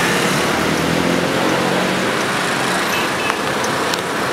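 Busy street traffic: car and scooter engines running close by over steady road noise, with a few faint clicks in the second half.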